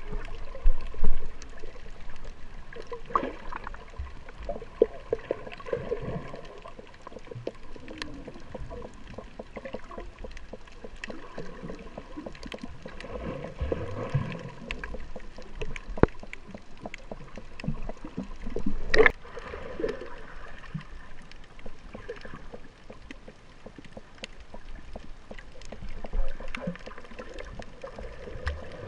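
Underwater sound from a camera held below the sea surface over a coral reef: muffled water movement and gurgling, scattered through with faint clicks. It swells louder about a second in and again about two-thirds of the way through.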